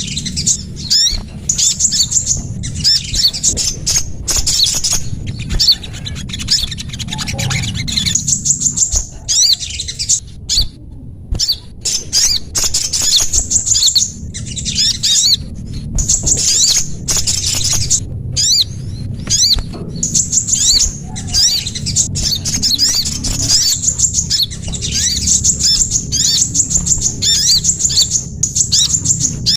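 Bird-lure recording of small songbirds calling: rapid, high-pitched chattering chirps in bursts of a second or two, repeated with short breaks, over a steady low rumble.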